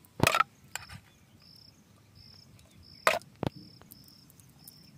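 An insect chirping in a regular series of short high chirps, about every two-thirds of a second. A few sharp clicks of a metal tool prying at the tight plastic cap of a small bottle cut in, the loudest near the start and about three seconds in.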